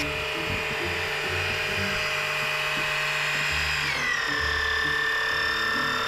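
Small 12-volt electric oil extraction pump running with a steady whine, sucking used oil out of a marine diesel's sump through a hose down the dipstick tube. Its pitch drops a step about four seconds in.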